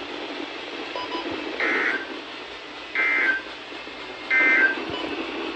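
Emergency Alert System end-of-message data bursts from a NOAA Weather Radio: three short warbling digital tone bursts, about a second and a half apart, over radio static. They mark the end of the severe thunderstorm warning.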